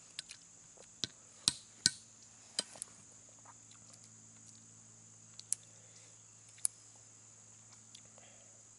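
Sharp knocks of hickory nuts being cracked with a hatchet head against a stone, several in quick succession in the first three seconds and a couple more a few seconds later. Insects drone steadily high in the background.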